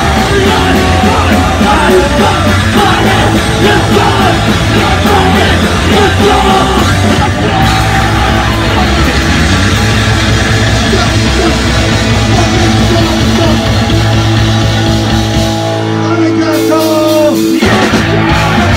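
Live punk rock band playing loud, with distorted guitars, bass, pounding drums and shouted vocals. Near the end the drums and low bass drop out, a held chord rings for a couple of seconds and then cuts off.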